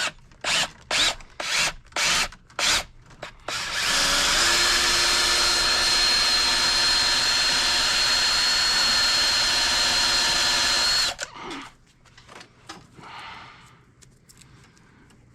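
About six sharp clicks, roughly two a second, then a power tool's motor runs steadily for about seven seconds with a high whine, driving a wire stripper whose blade has just been set deeper to cut the copper wire's insulation. It stops suddenly, followed by faint handling.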